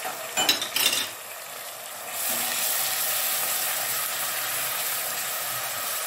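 Onions and ground spices sizzling in hot oil in an aluminium pot while a silicone spatula stirs them. A short clatter of the spatula against the pot comes under a second in, and the sizzling grows louder about two seconds in as the stirring begins.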